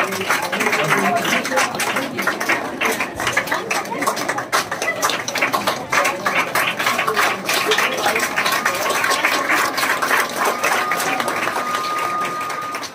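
A roomful of students clapping continuously in a fast, even patter that dies away near the end.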